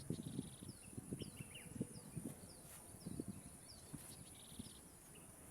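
Birds chirping: short, high, falling calls repeated about twice a second, with a brief buzzy trill near the start and another near the end. A steady high whine, like an insect's, runs underneath, along with faint low bumps.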